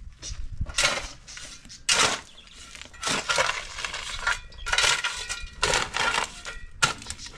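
A metal digging blade on a long wooden handle scraping and chopping into dry, stony soil, about six rough strokes with gravel and stones grating and clinking against the metal.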